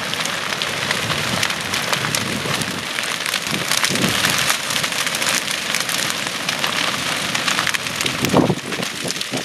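Prairie grass burning at the fire front: a dense, steady crackling made of many small pops.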